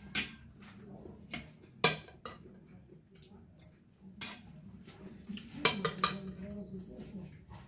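Metal spoon and fork clinking against ceramic plates while eating: a handful of sharp, separate clinks, the loudest about two seconds in and another pair near six seconds.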